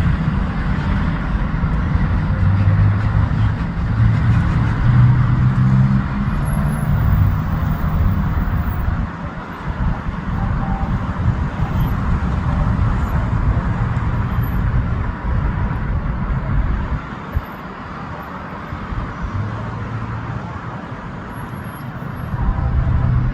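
Loud, continuous low engine rumble with a hiss above it, easing somewhat about three-quarters of the way through and swelling again near the end.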